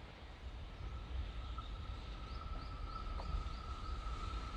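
JR Freight EF66 electric locomotive and its container freight train approaching at a distance: a low rumble with a steady high whine that comes in about a second in, the whole slowly growing louder. A bird chirps a quick run of rising notes in the middle.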